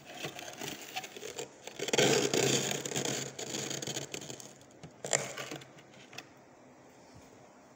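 Small plastic ice cream container scraping and crunching through thick freezer frost in uneven strokes, a few sharp clicks near the end, then the scraping stops about six seconds in.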